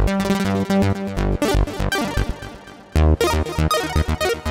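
Avenger 2 software synthesizer's arpeggiator playing a rhythmic sawtooth synth pattern. It fades away about two seconds in. About three seconds in, a new pattern begins, with notes split into quick ratchet repeats.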